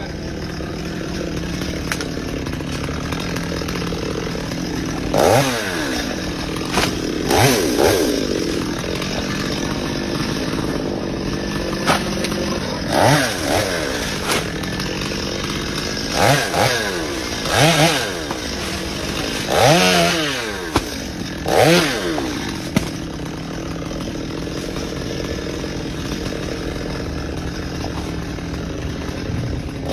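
Chainsaw engine running steadily near idle, revved in about seven short surges through the middle stretch, the pitch falling back to idle after each rev.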